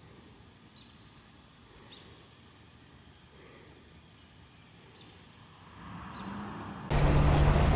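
Faint outdoor background, then about seven seconds in a loud, steady mechanical rumble cuts in abruptly: a front-loading washing machine running, its drum tumbling a load of laundry.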